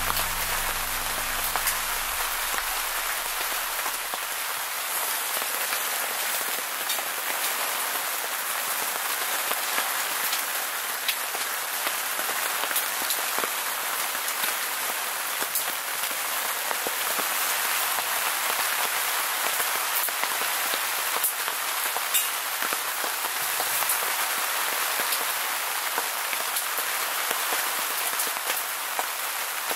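Heavy rain falling on a tent's fabric: a steady hiss with scattered sharp ticks of single drops.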